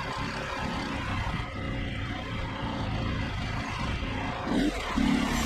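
Small petrol engine of a portable bandsaw sawmill running, mixed with a rough, uneven rush of noise. About five seconds in it settles into a steadier engine hum.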